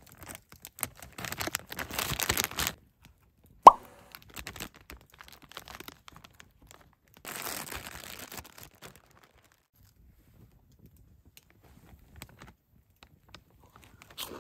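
Crunching and rustling with one sharp knock about three and a half seconds in, a second stretch of rustling later, then near quiet.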